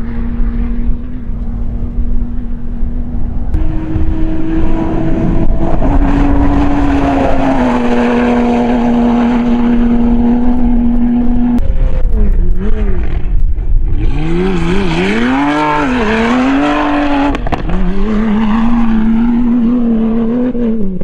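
Mini JCW Rally 3.0i rally-raid car's engine running hard at high revs, its pitch holding steady for several seconds at a time, with a few sudden shifts. From about halfway, the revs rise and fall again and again before settling back to a steady note near the end. A low rumble runs underneath throughout.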